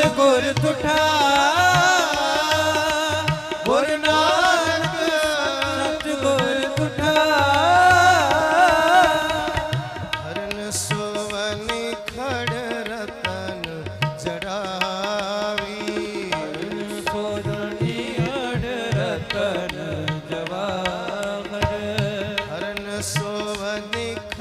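Sikh shabad kirtan: men's voices singing a devotional melody with wavering ornaments over harmonium and tabla. The singing is strongest for the first ten seconds or so, after which held harmonium tones and tabla strokes carry on under quieter singing.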